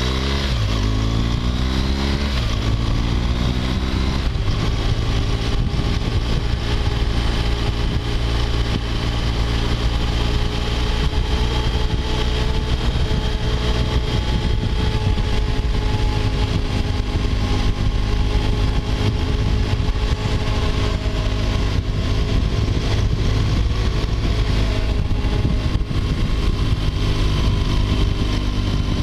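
BMW R1200GSA boxer twin pulling away from a stop, its revs climbing and dropping back through the first few gear changes, then running steadily at cruising speed, with wind rushing over the helmet-mounted microphone.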